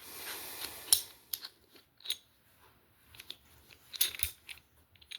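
Metal quick-disconnect scope mount being handled and fitted: a soft scrape, then scattered sharp clicks, the loudest about a second in and a cluster near four seconds.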